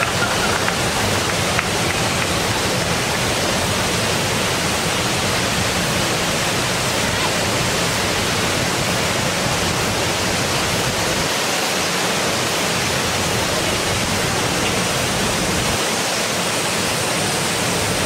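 Kani-daru, a small waterfall on the Kawazu river, pouring into its plunge pool: a steady, unbroken rush of falling water.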